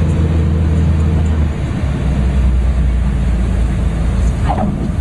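Cessna 400 Corvallis's turbocharged six-cylinder Continental TSIO-550 engine running steadily, heard inside the cockpit; its note shifts lower about a second and a half in. A brief squeak comes near the end.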